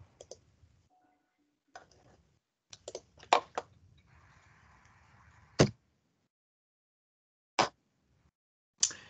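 Irregular sharp clicks and thumps picked up on an open video-call microphone, about eight in all, several close together about three seconds in, with a short hiss about four seconds in.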